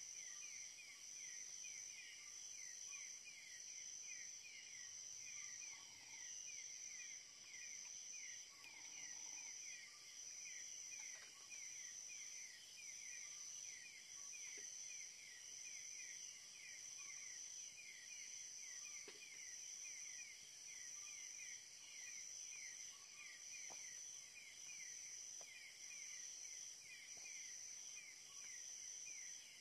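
Night insects chirping in the forest: a high pulsing trill with a lower chirp repeating about three times a second, steady throughout.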